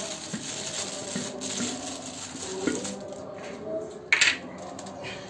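Small clicks and knocks of hard plastic RO-purifier fittings and tubing being handled, over a background hiss that stops about three seconds in. A short, loud scraping burst comes a little after four seconds.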